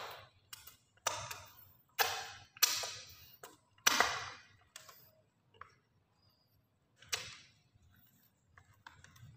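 Crisp vegetable crackers crunching as they are bitten and chewed: a string of sharp, separate crunches, loudest and most frequent in the first four seconds, with one more about seven seconds in and fainter ones near the end.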